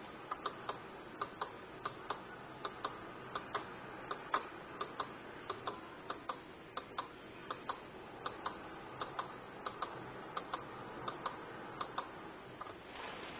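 Sharp clicking in quick pairs, a pair about every three-quarters of a second, over a faint steady hiss. The clicking stops about a second before the end.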